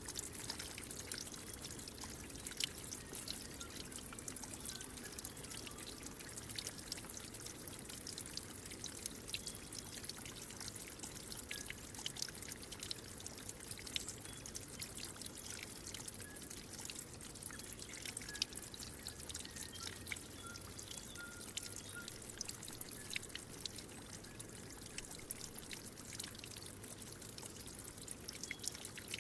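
Water trickling and splashing steadily, with many small drips and splashes through it.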